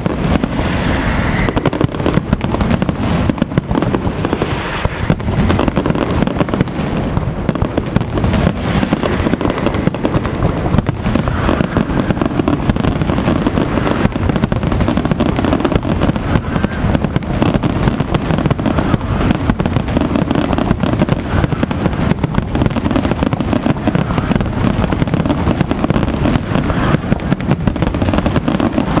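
Aerial fireworks display: a dense, unbroken barrage of shell bursts and crackling bangs, many each second, at a steady high loudness.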